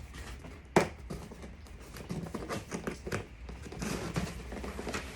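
A single sharp knock a little under a second in, followed by light, irregular taps and rustling handling noises.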